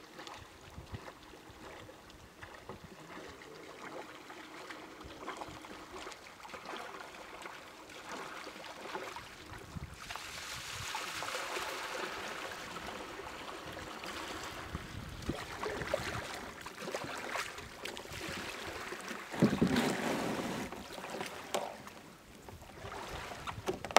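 Kayak paddle strokes and water splashing with wind noise, growing louder about ten seconds in as the kayak comes close. There is a louder rush a little over two-thirds through, and a few sharp clicks near the end.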